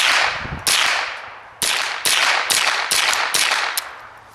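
A small semi-automatic rifle fitted with a 3D-printed PLA suppressor, firing about eight shots in quick, uneven succession. Each shot is a sharp crack with a short ringing tail; the supersonic crack of the fast ammunition still comes through the suppressor.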